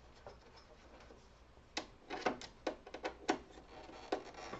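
A quick run of about nine small clicks and knocks, starting a little under two seconds in: a screwdriver and plastic panel parts being handled while screws are loosened on a Brother laser printer's housing.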